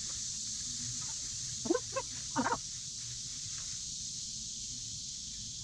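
Three short animal calls in quick succession about two seconds in, over a steady high-pitched hiss.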